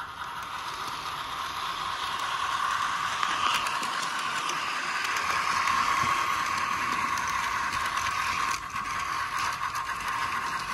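Model steam locomotive running on track: a steady mechanical whirr of its motor, gears and wheels, with faint rapid clicking, getting louder over the first few seconds as it comes close.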